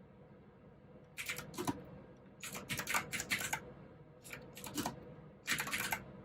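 Mechanical keyboard with clicky blue switches being typed on, in four short bursts of rapid keystrokes with pauses between, the first starting about a second in.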